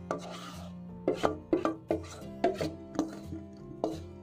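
Wire whisk clinking against a stainless steel mixing bowl while stirring melted chocolate into brownie batter: sharp, uneven strikes about two or three a second, each with a brief metallic ring.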